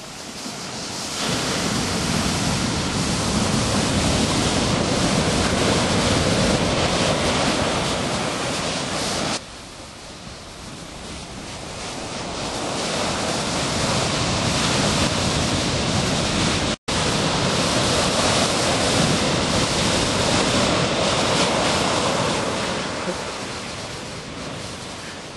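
Ocean surf breaking and washing, with wind rumbling on the microphone. The sound drops suddenly about nine seconds in, swells back, and cuts out for an instant about two-thirds of the way through.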